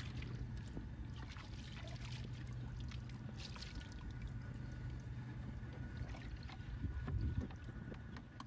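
Shallow ditch water sloshing and dripping around hands and rubber boots, over a steady low rumble. A louder splash about seven seconds in as a large freshwater mussel goes into a bucket of water.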